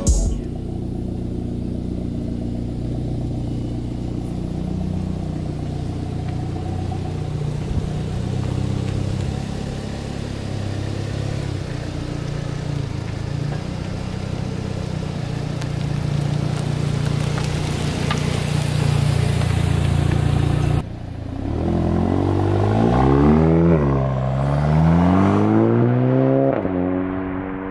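Exhaust of a 2017 Audi A3's turbocharged four-cylinder, through a Borla S-Type cat-back, running at a steady low idle. Then the car accelerates away hard, its engine note climbing and dropping back twice as it shifts up.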